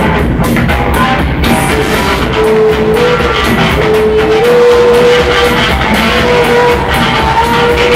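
A live rock band playing loud: electric guitar and bass guitar over drums, with a long held melody note coming in about two seconds in.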